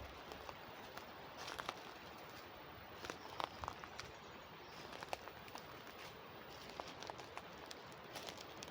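Footsteps on a narrow path strewn with dry leaves, scattered irregular crunches and ticks, over the steady faint rush of water flowing in an irrigation channel.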